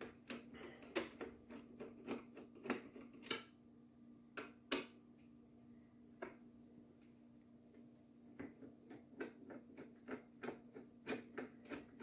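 Phillips screwdriver turning small screws out of a plastic computer housing: irregular light clicks and ticks, bunched in the first few seconds and again near the end, over a faint steady hum.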